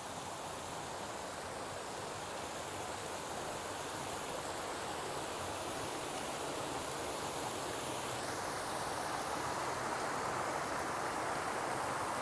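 Rocky mountain stream rushing and splashing over boulders in small cascades, a steady rush that grows gradually louder.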